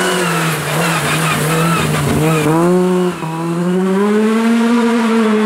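Opel Adam rally car's engine running hard at high revs. Its note dips and climbs back about two seconds in, breaks briefly near three seconds, then holds high and steady.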